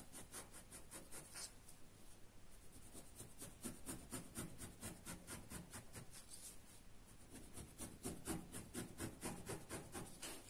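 Ballpoint pen drawing on paper: faint, quick, repeated scratching strokes as the lines of a sewing pattern are traced.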